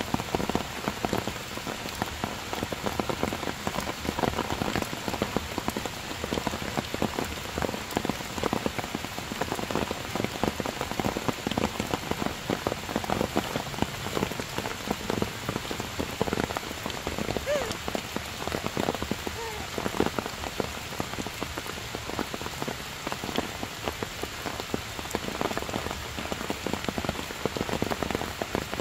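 Heavy rain falling steadily on forest foliage and wet stone, a dense patter of drops.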